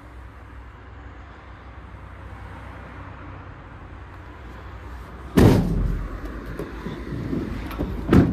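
Ford Transit van doors slammed shut twice, a heavy bang about five seconds in and a second, sharper one near the end, over a steady low rumble.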